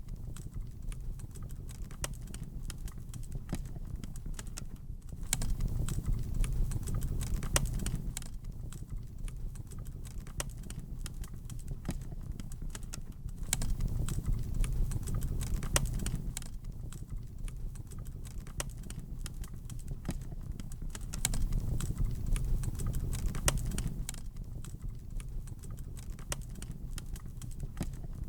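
Wood fire crackling in a fireplace: irregular sharp pops and snaps over a low rumble of flames that swells and fades about every eight seconds.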